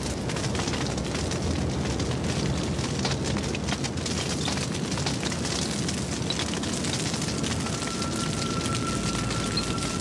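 Wildfire burning through grass and scrub: dense crackling over a steady low roar.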